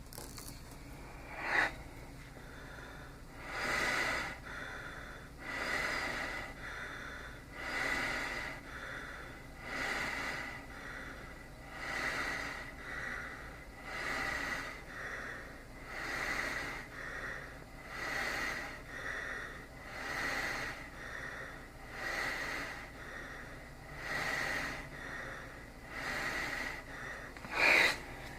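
Small travel CPAP machine blowing at 10 cmH2O with pressure relief (flex) at 3: a steady air hiss that swells in regular surges about every two seconds. A short, sharper burst of sound comes about a second and a half in and again near the end.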